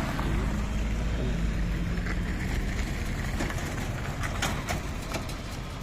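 Steady low rumble of a moving vehicle, with a faint held tone in the middle and a few sharp clicks or knocks near the end.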